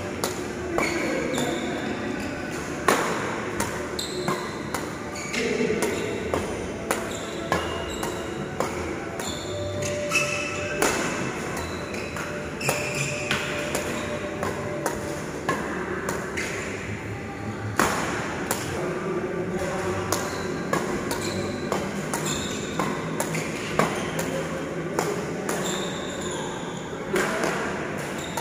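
Badminton rackets striking a shuttlecock again and again in a rapid feeding drill: sharp hits about once a second or faster, with short squeaks from shoes on the court.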